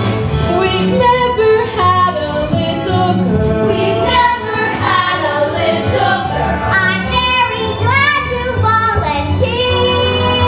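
Young girls' voices singing a show tune together over musical accompaniment.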